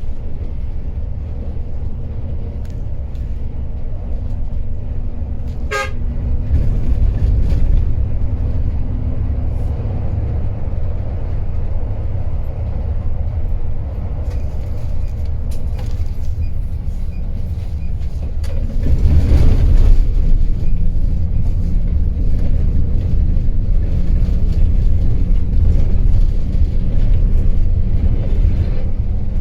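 Intercity coach on the move, heard as a continuous low engine and road rumble with horn toots. The rumble grows louder for a second or two about two-thirds of the way through.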